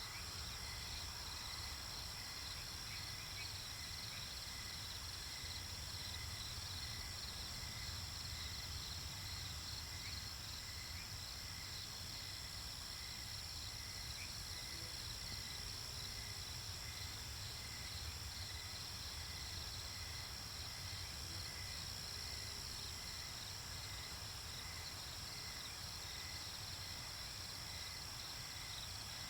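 Night-time chorus of crickets and other insects chirring steadily, with several high pitches layered and some pulsing chirps, over a low rumble.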